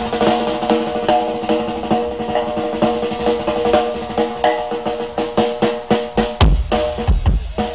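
Live band music: a held didgeridoo drone over a fast drum kit and hand percussion, with heavy bass-drum hits coming in near the end.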